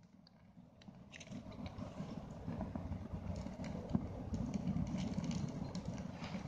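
A hunting (storm) match flaring and burning with a rough hissing rush and small crackles, building up over the first couple of seconds and then holding steady.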